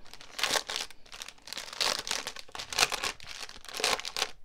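Plastic packaging crinkling and rustling in irregular bursts as it is handled and pushed into place.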